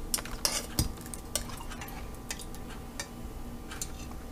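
Scattered light clicks and taps of kitchen handling as canned pineapple rings are lifted out and pressed into a thin aluminium foil cake pan, over a faint steady hum.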